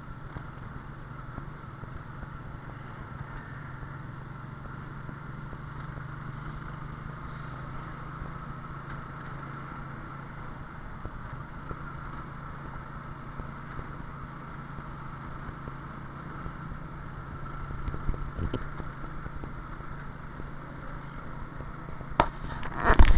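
Steady engine and road hum of a moving vehicle, heard from inside the cab, with a few sharp knocks and rattles near the end.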